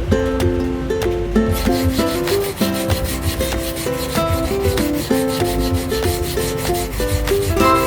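Kitchen knife being sharpened: the blade rubs in repeated strokes against a sharpener, under background music with a plucked melody.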